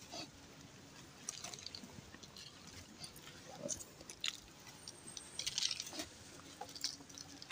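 Faint scattered crunches and small clicks of an egg, rice and salt being set into a post hole in the soil.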